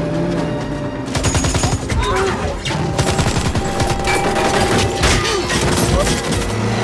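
Automatic gunfire from a vehicle-mounted machine gun, starting about a second in and going on in rapid, dense volleys.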